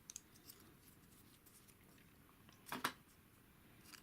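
Small plastic kit pieces being handled and pressed together: faint scattered clicks, with one louder click a little under three seconds in.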